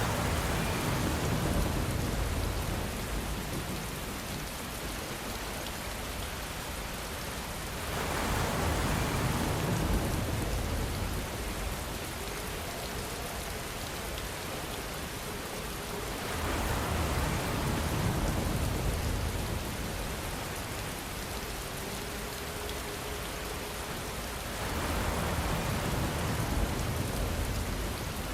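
Steady rainfall, a soft even hiss of drops on a surface, swelling louder for a few seconds about every eight seconds, four times in all.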